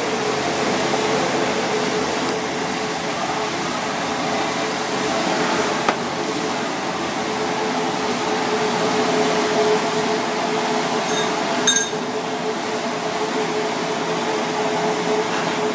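Steady hum and rush of commercial kitchen equipment, with a constant low tone. There is a single click about six seconds in and a short metallic clink about twelve seconds in.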